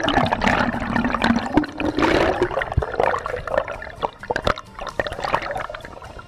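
Water gurgling and sloshing around a camera held underwater beside a moving kayak hull, full of small bubbly clicks and pops. It is busiest in the first half and eases off after about four seconds.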